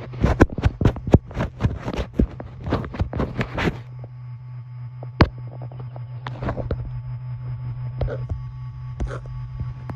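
Hand work on a car's engine bay: a quick, irregular run of metal clicks and rattles for about four seconds, then a steady low hum with a few scattered single clicks.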